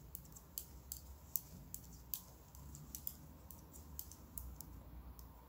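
Knitting needles clicking faintly and irregularly, several light clicks a second, as stitches are worked in a decrease row of the beret's pattern.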